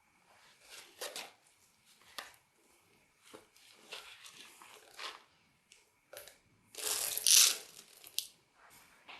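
Slime being squeezed and stretched by hand, giving a series of short sticky crackles and pops of trapped air. The loudest is a longer crackling burst about seven seconds in.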